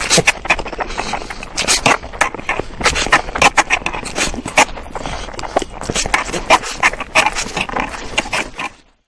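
A man slurping saucy instant noodles fast, with a dense run of quick wet slurps, chewing and mouth smacks. It stops abruptly just before the end.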